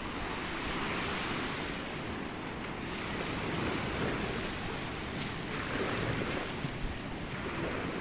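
Sea waves breaking and washing in, swelling and easing in slow surges, with wind rumbling on the microphone.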